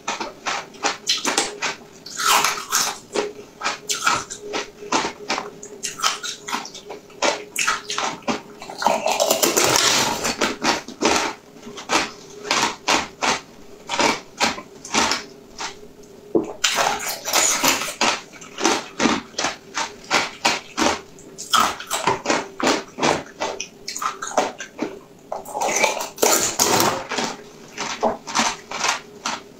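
Close-miked wet chewing of gelatin jelly packed with small pearls: a dense run of sticky clicks, squishes and pops. There is a longer wet stretch about nine to eleven seconds in, and a faint steady hum underneath.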